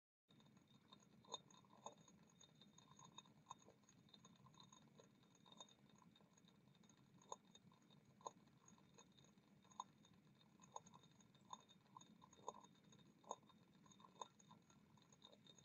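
Very faint, scattered ticks and pops, roughly one a second, from water heating in a glass beaker on a hot plate as bubbles start to form, over a low steady hum.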